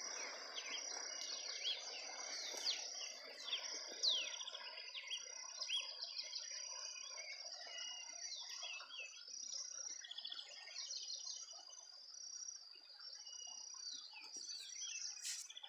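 Many birds chirping and calling over a steady high insect drone, with a low rush of flowing floodwater beneath that thins after about four seconds.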